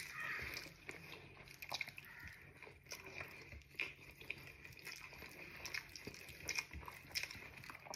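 Faint eating sounds: chewing and fingers scooping mashed tapioca off a plate, with scattered soft clicks and smacks.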